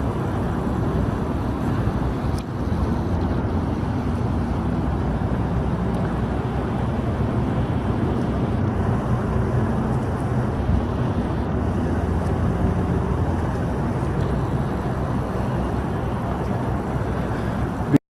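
Steady low engine rumble with a faint hum, unchanging throughout, cut off abruptly at the end.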